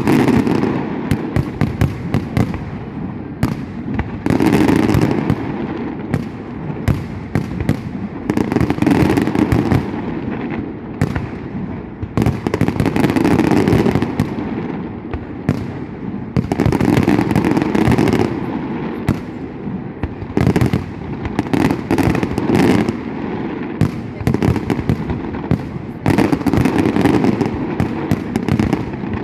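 Fireworks display: a dense, continuous run of bangs and crackling that swells into louder volleys every three to four seconds.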